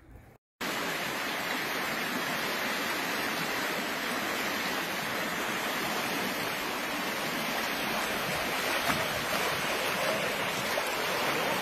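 River rapids rushing steadily, starting abruptly about half a second in.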